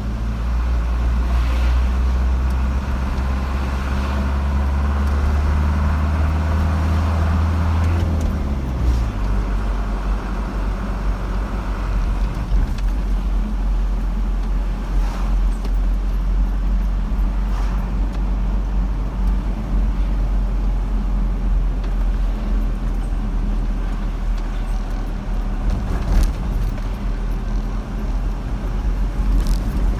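A car driving along a road: steady engine and road rumble, the engine note easing down in pitch about eight seconds in, with a few light knocks later on.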